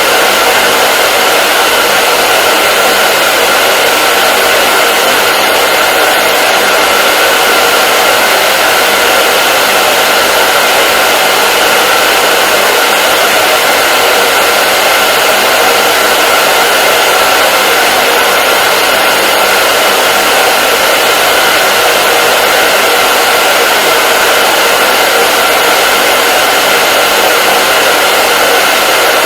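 Hair dryer running steadily: a continuous loud rushing of air over a steady motor whine.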